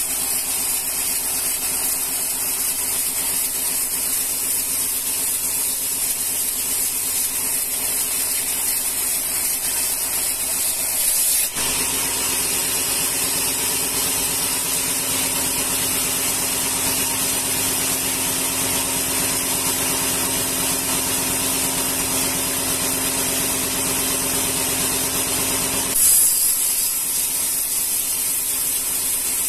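Band sawmill blade running through a rengas log: a steady hiss over the machine's hum. About 11 seconds in the sound changes suddenly to a stronger, more tonal hum, and near the end it changes back.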